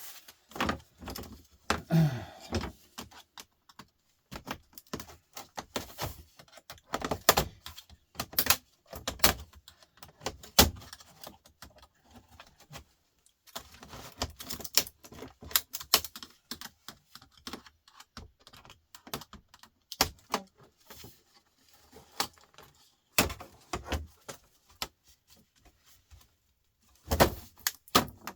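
Irregular clicks, rattles and knocks of plastic and metal parts being handled and pulled apart during a TV/DVD teardown, with a louder cluster of knocks near the end.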